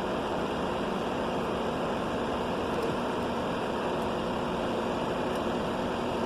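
Steady, even whooshing noise like a blower or fan running, unchanging throughout.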